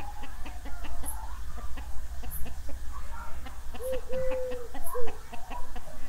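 Domestic hens clucking, with one hen giving a drawn-out, held call about four seconds in. Short high insect chirps recur in the background over a low wind rumble.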